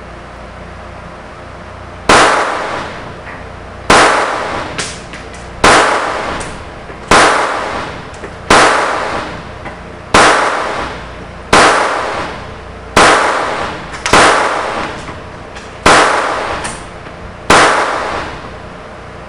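Stoeger Luger .22LR pistol firing eleven shots at a steady pace of about one every one and a half seconds, starting about two seconds in, each crack trailing off in a short echo.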